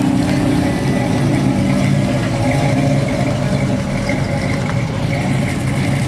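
Classic American car engines running at low speed as a Pontiac Firebird convertible drives slowly past, followed by an early-1970s Dodge Challenger: a steady, low, even engine note.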